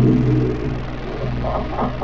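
Dark ambient music: a low, steady drone, with pulsing higher tones coming in about a second and a half in.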